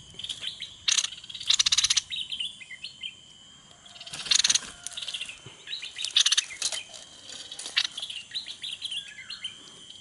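Small birds chirping and calling, with about four short, very fast rattling bursts of notes.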